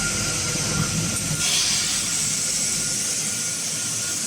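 Fiber laser welding machine running: a steady hiss over a low hum, the hiss growing stronger about a second and a half in.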